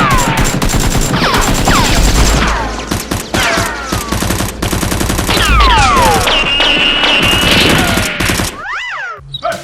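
Automatic gunfire sound effects: sustained rapid shots in long bursts, with several falling whistling tones over them. The firing breaks off near the end.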